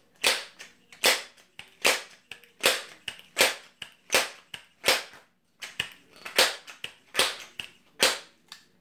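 Crosman 1322 multi-pump pneumatic air pistol being pumped ten times, building air pressure for a shot. Each pump stroke is short and sharp, and they come at an even pace of a little over one a second.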